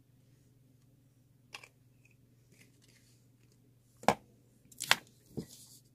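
Quiet room tone with a faint steady hum. A small click comes about a second and a half in, then three sharp knocks and clicks from about four seconds in, the loudest near five seconds: paint tube and brayer being handled on the craft table.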